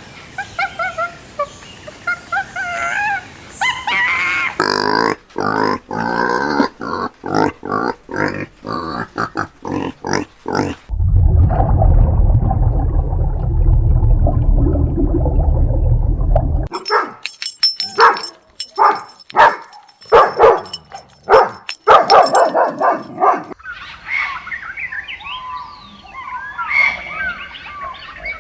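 A run of different farm animal calls, one short clip after another: wavering pitched calls, then rapid repeated calls, a loud low rumbling stretch in the middle, sharp clicking calls, and chirping calls near the end.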